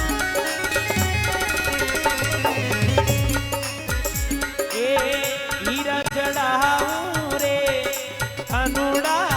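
Rajasthani folk devotional song (bhajan) music: a melody with bending, wavering notes over a steady hand-drum beat.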